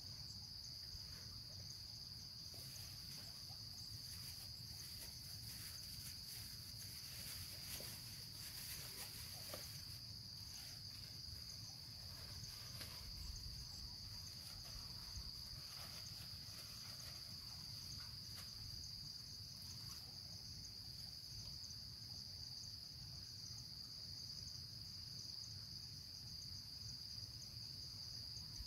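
Insect chorus, likely crickets, as a steady, faint, high-pitched trilling drone, with scattered faint clicks in roughly the first two-thirds.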